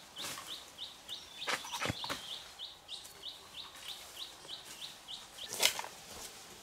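A bird chirping in an even series of short high chirps, about three a second, stopping about two-thirds of the way through. There are scattered rustles and clicks, with a louder rustle near the end.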